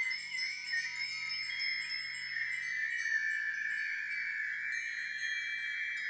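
Small brass hand bell rung steadily, a dense shimmer of overlapping high ringing tones, with a faint low hum beneath.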